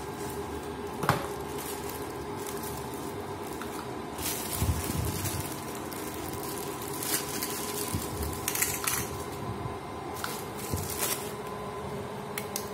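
Scattered clicks and rustling handling noises, with a few sharper clicks, over a steady low hum.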